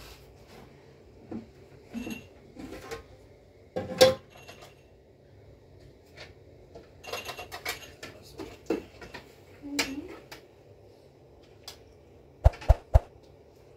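Scattered clinks and knocks of dishes and utensils being handled, with a louder knock about four seconds in and a quick run of sharp knocks near the end.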